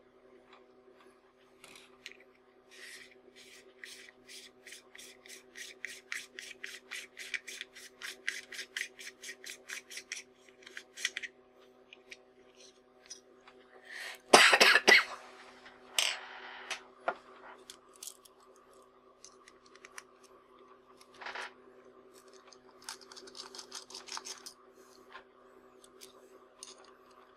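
Hands working a camera lens during disassembly: a run of small, even clicks, about three or four a second, as the lens is turned. About fourteen seconds in comes a louder brief scrape and clatter, and near the end more light clicking and scraping. A faint steady hum runs underneath.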